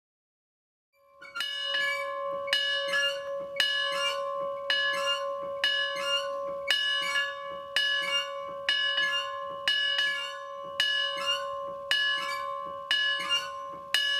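A large bell tolling steadily, about one strike a second, each stroke ringing on under the next. The tolling starts about a second in.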